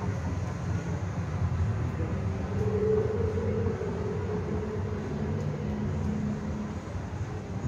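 Low, steady rumbling drone from a haunted house's ambient sound effects, with a faint held tone that swells around the middle.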